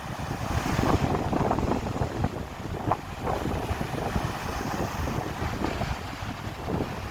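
Wind buffeting the microphone in uneven gusts over the wash of sea waves.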